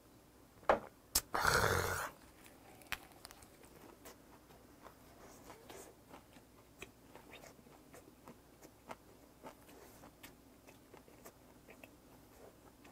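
Close-miked chewing of a lettuce wrap of grilled pork belly: faint wet smacks and crunches at an irregular pace. Near the start come a couple of sharp clicks and a short, loud noisy burst lasting about half a second.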